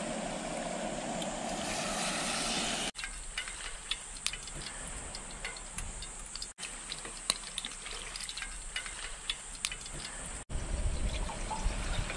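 Camp cooking on a gas stove in short cut-together segments: first a steady hiss, then light scattered crackling and pops. About ten seconds in, water is poured from a plastic bottle into an aluminium mess tin.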